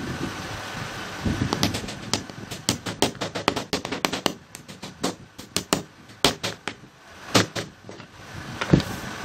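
Hammer driving nails through a pine batten into a pine board. A run of quick taps gives way to a few heavier blows about a second apart near the end, which set the nails flush.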